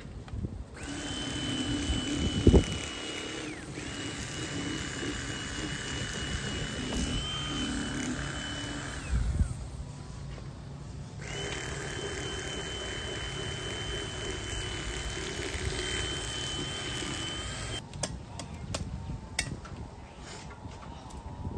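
A small electric motor whining at a steady pitch in three runs of a few seconds each, its pitch falling away as it stops each time. There is a sharp knock about two and a half seconds in, and a thump about nine seconds in.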